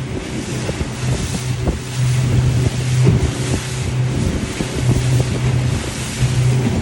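Motorboat engine running steadily at sea, a constant low drone, with wind blowing hard on the microphone and many short knocks mixed in.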